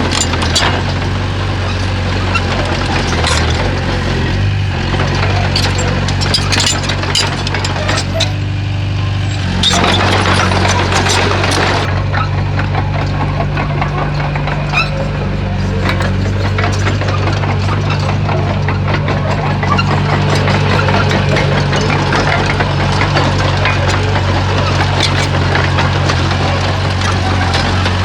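Komatsu bulldozer's diesel engine running under load, revving up about nine and a half seconds in and holding the higher speed, with frequent metallic clanks and knocks from the working machine.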